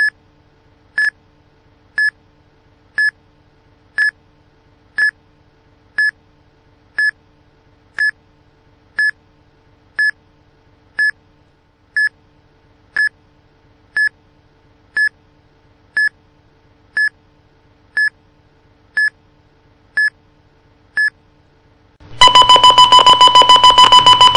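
Movie-style time-bomb countdown timer beeping once a second, one short high beep per tick. About two seconds before the end it switches to a louder, rapid two-tone alarm beeping, several beeps a second, as the countdown runs out.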